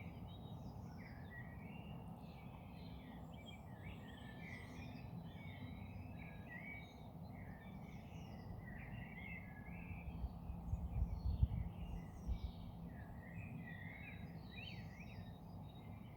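Early-morning dawn chorus: several birds singing and calling at once, a dense run of chirps, trills and warbles. It sits over a low rumble, with a few louder low thumps about ten to twelve seconds in.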